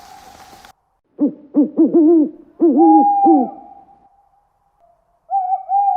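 Owl hooting: a quick run of short, rising-and-falling hoots, then a longer drawn-out hoot that fades away. After a short pause, another long hoot starts near the end.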